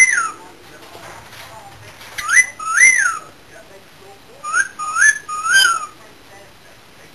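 Cockatiel whistling: short phrases of clear whistle notes, each rising and then falling in pitch, in groups of two or three with short pauses between.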